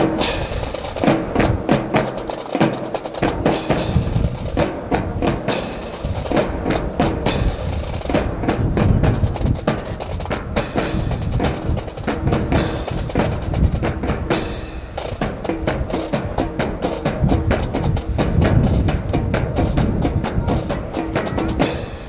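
Drum corps playing a marching cadence on snare and bass drums, with dense sharp strikes and rolls.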